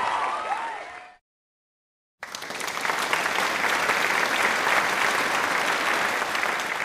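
Crowd cheering that fades out within the first second; after a silent cut, a crowd applauding steadily for about five seconds.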